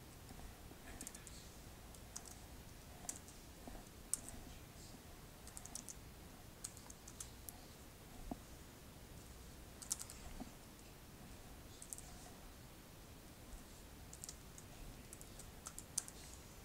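Faint computer keyboard typing: scattered keystrokes in short runs with pauses between, as text is entered into web form fields.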